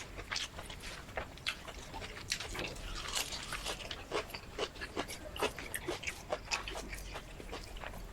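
Close-miked chewing and eating sounds: many quick, irregular mouth clicks and crunches as shrimp and rice are eaten.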